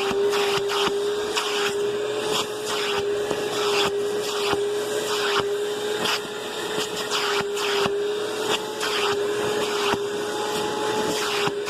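Vacuum cleaner running steadily with a constant motor whine, its air-driven turbo brush being pushed over a bed sheet, with irregular scratchy rustling and small clicks as it moves over the fabric.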